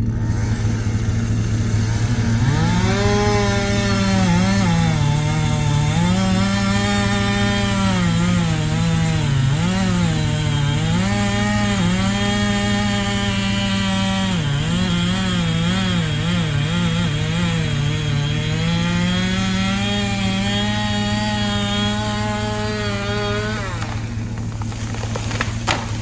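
Chainsaw cutting through the trunk of a tall pine, its engine note dipping and recovering again and again as the chain bogs in the cut, over a steady low engine hum. The cutting stops near the end and a couple of sharp cracks follow as the tree starts to fall.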